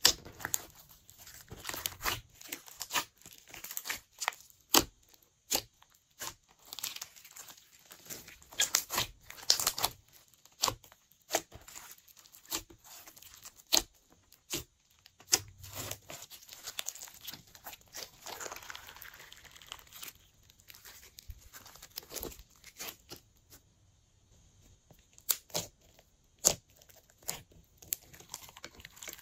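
Glossy slime being squeezed and stretched by hand, giving irregular sharp sticky clicks and pops, sparser for a few seconds in the second half.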